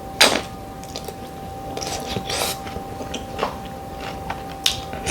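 Close-up eating sounds: chewing with wet mouth smacks, a handful of short crackly bursts spread through, the sharpest about a quarter second in.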